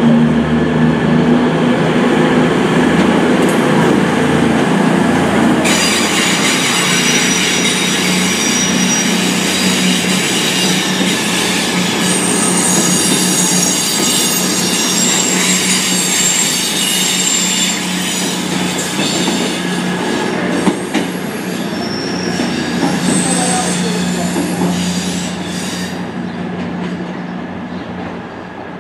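CrossCountry Voyager diesel multiple unit pulling away under power, its underfloor diesel engines giving a steady drone as the carriages roll past. From about six seconds in, high-pitched wheel squeal joins in, and the whole sound fades as the train draws away near the end.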